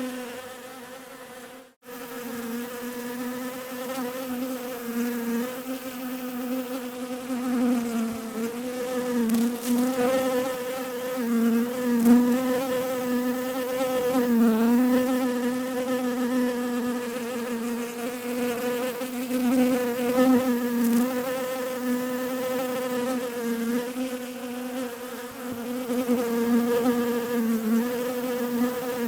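Bees buzzing: a steady droning buzz whose pitch wavers slightly, with a brief gap about two seconds in.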